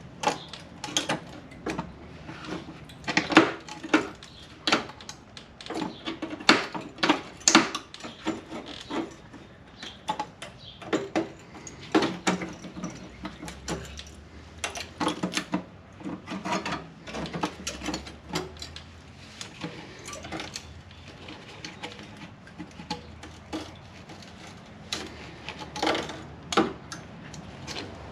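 Irregular metallic clinks and knocks from hand tools and metal parts being picked up, handled and set down, busiest in the first half.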